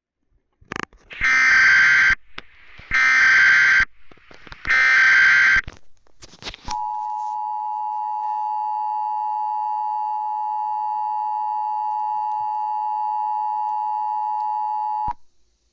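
Emergency Alert System tones: three short data bursts of the digital SAME header, each about a second long. Then the EAS two-tone attention signal sounds steadily for about eight seconds and cuts off suddenly, announcing a tornado warning.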